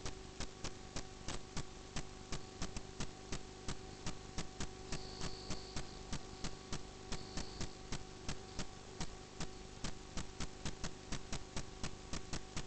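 Fast, even clicking, about four clicks a second, over a steady electrical hum.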